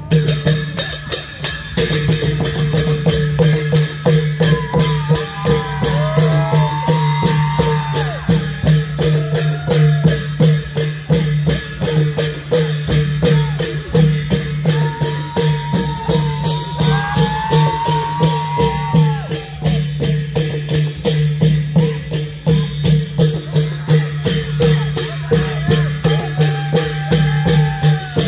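Klong yao (Thai long drum) ensemble playing: many long drums beating a fast, even rhythm over a steady low drone, with a wavering melody line coming in now and then.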